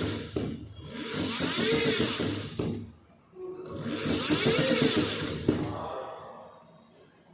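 Ola S1 X+ electric scooter's motor run up and let down twice, a whirring whine that rises and falls over a coarse grinding hiss, with a sharp click at the start and another near the end; it is the noise the owner reports as a motor problem.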